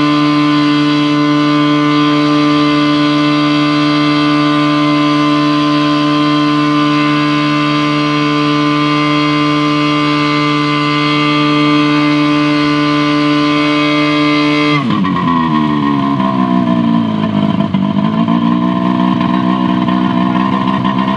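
Tohatsu V50 Rabbit fire pump's two-stroke engine running at a steady high speed. About fifteen seconds in, its speed drops suddenly, sags lower a couple of seconds later, then picks up slightly again.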